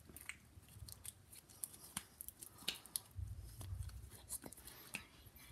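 Pink slime being stretched and squeezed in the hands, giving faint, irregular sticky clicks and small snaps. A low rumble comes in about three seconds in.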